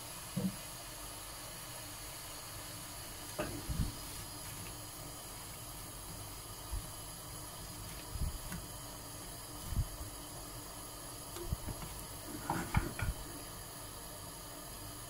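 Steady hiss of a small saucepan of strawberries, sugar and water heating toward the boil on a gas stove. Scattered soft knocks as a silicone spatula stirs the fruit, a cluster of them near the end.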